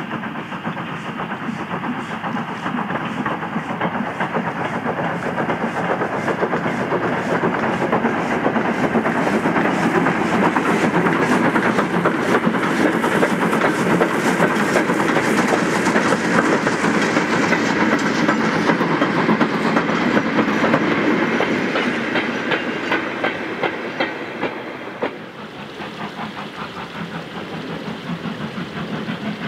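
Lancashire & Yorkshire 0-6-0 saddle tank steam locomotive working past with a short train of goods wagons: rapid exhaust beats and wheels clattering on the rails. The sound builds to a peak as the train passes and fades away. About 25 s in it drops suddenly, then builds again as the engine approaches once more.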